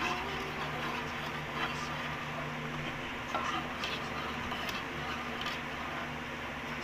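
Thin plastic ice candy bags crinkling in short, scattered rustles as they are twisted and knotted shut by hand, over a steady low hum.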